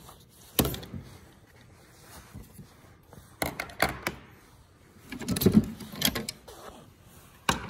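Metal hand ratchets clinking and knocking as they are picked out of a tool drawer and set down on a stainless steel toolbox top, a handful of sharp clinks spread out, with a busier clatter about two thirds of the way through.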